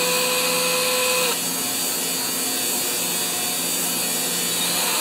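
Cordless drill running steadily, spinning a carburetor's rubber-tipped inlet needle while the tip is squeezed in 1000-grit sandpaper with valve grinding compound to lap it smooth. The drill's whine changes and drops slightly about a second in.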